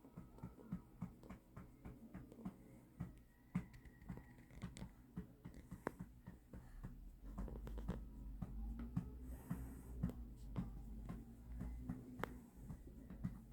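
Soft, rhythmic patting on a baby's back to bring up a burp, about three pats a second, with the baby's breathing.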